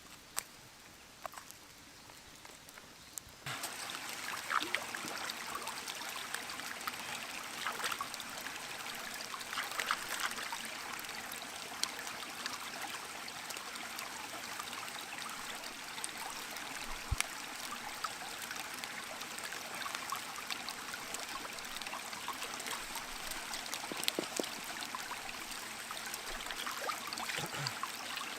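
Water trickling steadily with scattered small drips, starting abruptly about three and a half seconds in; before that only faint ambience with a few light clicks.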